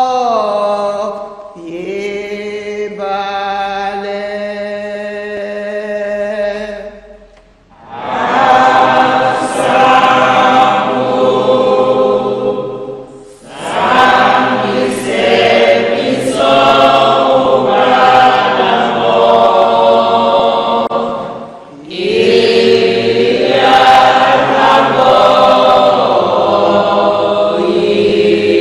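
A choir singing a hymn, largely unaccompanied, in four phrases with short breaks between them; the later phrases are fuller than the first.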